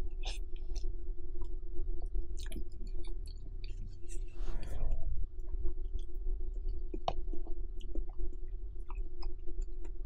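Close-miked wet chewing and mouth clicks of someone eating creamy spaghetti carbonara, over the steady hum of an electric fan. There is a short rushing sound about four and a half seconds in.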